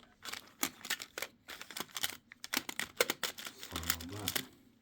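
Small bicycle spare parts and their plastic bags being rummaged through and packed back into a tin: a busy run of clicks, rattles and crinkling.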